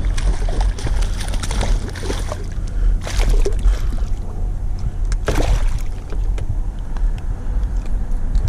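Water sloshing and splashing beside a kayak, with two brief louder splashes about three and five seconds in, over a steady low rumble.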